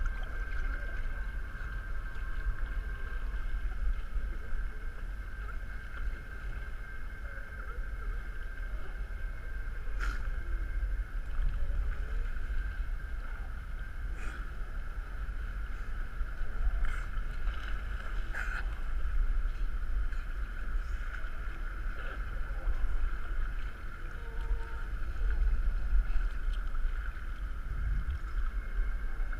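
Kayak on open water: a steady low rumble of wind and water on the microphone, with a few sharp knocks or splashes between about ten and nineteen seconds in.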